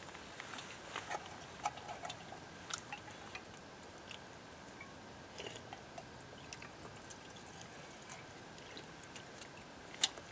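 Light clinks and taps of a small titanium pot and its wire bail handle as the pot is lifted. Broth is poured from it into a metal cup midway, and there is one sharper metal clink near the end.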